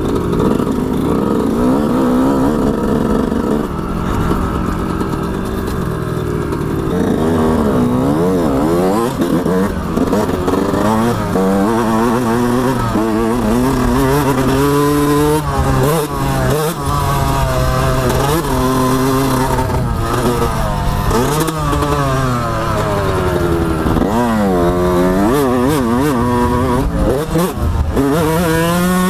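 2006 Yamaha YZ125's single-cylinder two-stroke engine being ridden hard, revving up and falling back over and over as the throttle opens and shuts. Fairly steady for the first several seconds, then quick repeated rises and drops in pitch.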